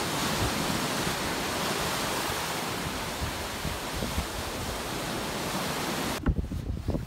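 Waves breaking on the shore: a steady hiss of surf that cuts off suddenly about six seconds in, leaving low gusts of wind on the microphone.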